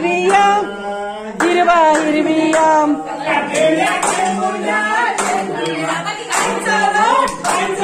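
A group of men and women singing a devotional song (bhajan) together, with hand clapping.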